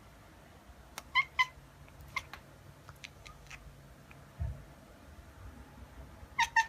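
Short, high squeaky calls from a pet animal, several brief ones in pairs and singly, with a soft low thump midway.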